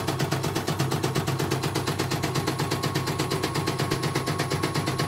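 CNY portable computerized embroidery machine stitching: its needle mechanism clatters in a rapid, even rhythm of about ten stitches a second. It is running smoothly, a sign the repair has worked.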